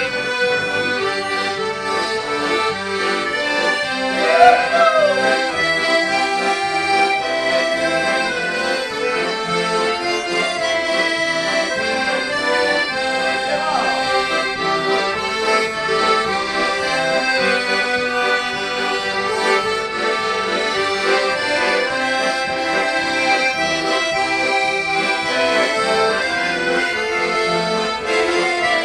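Several accordions played together in a traditional gaúcho tune, a full, steady sound of many sustained notes. A short rising-and-falling whoop rises over the music about four and a half seconds in.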